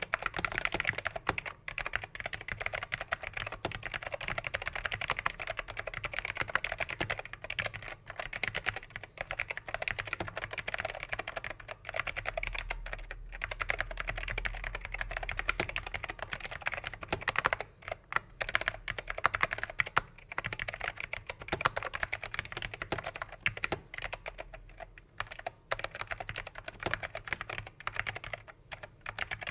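Fast, continuous typing on a vintage NeXT keyboard with factory-lubed black Alps (pine) switches: a dense run of key clacks with a few brief pauses.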